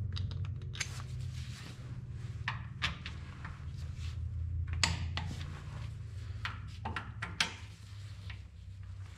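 Torque wrench ratcheting and clicking in sharp, irregular clicks as connecting rod cap bolts are brought up to 60 ft-lb, over a steady low hum.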